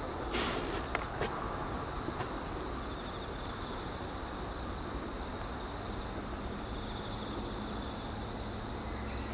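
Cicadas droning steadily, a faint high pulsing trill that swells and fades, over a low outdoor hiss. A few light clicks come in the first second or so.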